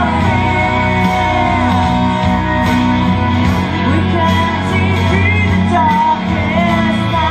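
Live band music: a woman singing lead into a microphone with other voices joining her, over an amplified band with steady bass notes.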